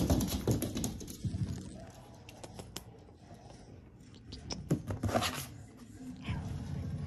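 Close handling noise of a plastic storage-bin lid, heaviest in the first second and a half, with scattered light taps, clicks and scratches, a busier patch of clicking and scraping about five seconds in, and a short rising squeak a little after six seconds.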